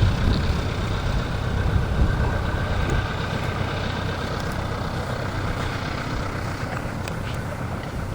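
Piper Cub's small piston engine droning steadily as a low rumble, slowly fading away.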